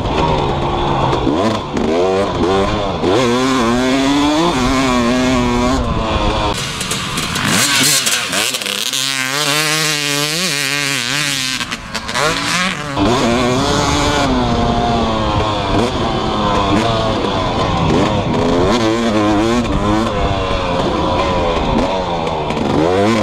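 2018 Husqvarna TC250's single-cylinder two-stroke engine revving hard and dropping off again and again as the motocross bike is ridden, its pitch climbing through each gear and falling at each shift or roll-off. From a few seconds in to about halfway it is heard from beside the track rather than from the bike, with more hiss.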